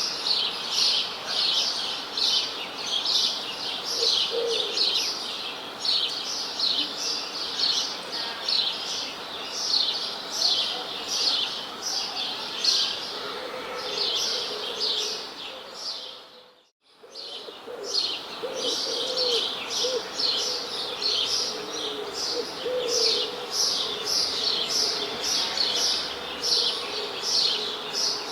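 A dense chorus of many birds chirping rapidly and continuously, with a few lower calls beneath. About two-thirds of the way in, the chorus briefly fades out almost to silence, then comes back.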